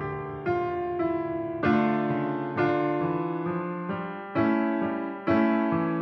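Background music: slow keyboard chords, one struck about every second and left to fade until the next.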